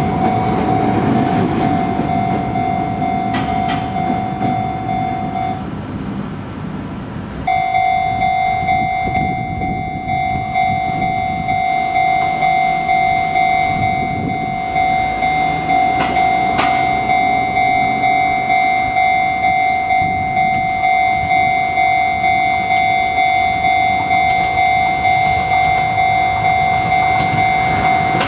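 Japanese level-crossing alarm ringing in an even, repeating beat, with an Izuhakone Railway electric train running over the crossing in the first few seconds. The bell breaks off briefly about six seconds in, then rings on.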